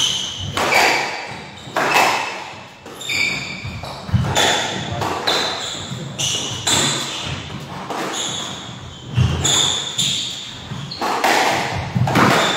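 Squash rally: the ball is struck by the rackets and hits the walls about once a second, each hit echoing around the enclosed court, with short high squeaks of shoes on the wooden floor between the shots.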